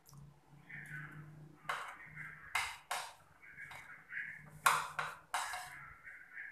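A metal spoon clinking and scraping against a plate in about half a dozen short sharp strikes, with chewing of crunchy bhel between them.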